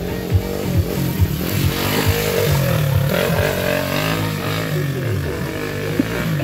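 Motorcycle engine revving up and down in short rises and falls as it is ridden slowly over rough dirt obstacles.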